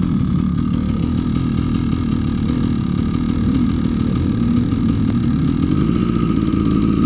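Dirt bike engine running steadily at low revs and idling, heard close up from the bike itself.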